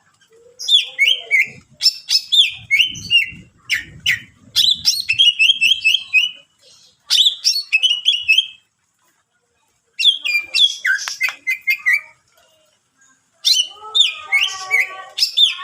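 Green leafbird (cucak ijo) singing a loud, varied song of chirps, whistles and quick repeated trills, in phrases broken by short pauses. The song is full of mimicked calls of other birds.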